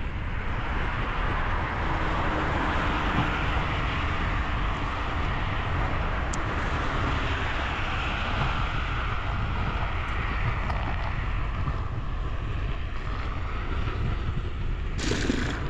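Wind buffeting the microphone while cycling fast downhill: a steady rush with a deep rumble.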